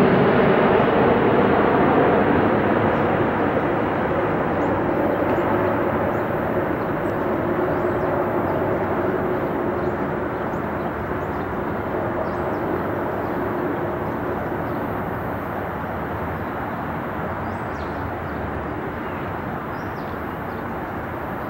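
Boeing 787 Dreamliner jet engines on approach with landing gear down: a steady rushing rumble that fades gradually as the airliner flies away, its hiss dropping off first.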